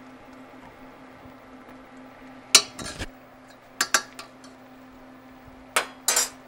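Sharp clinks of a metal kitchen utensil knocking against a skillet, in three pairs a little over a second apart, over a steady low hum.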